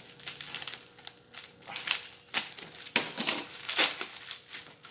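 Packaging being pulled open by hand, crinkling and rustling in irregular bursts.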